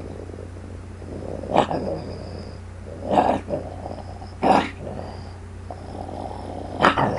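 A person imitating a peeved wolf: a low, rough, continuous growl broken by four sharp, loud snarls, about one and a half seconds in, at three seconds, at four and a half seconds and near the end.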